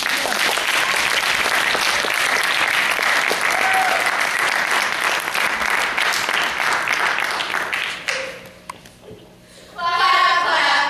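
Audience applauding in a school auditorium for about eight seconds, then dying away. Near the end a group of voices begins singing.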